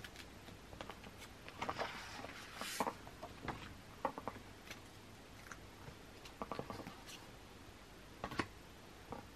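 Faint rustling and scattered light clicks of album photocards and paper packaging being handled and pulled out, with a longer rustle about two seconds in and a few sharper taps later.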